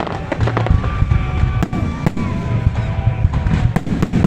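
Festive fireworks salute going off: sharp bangs and cracks in quick succession over a continuous low rumble, with drawn-out whistling tones between the bursts.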